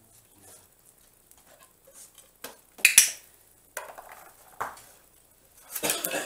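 A Pumi dog moving around a cardboard box on a tiled floor: a series of sharp clicks and clatters of claws, box and tiles, the loudest about three seconds in and a cluster near the end.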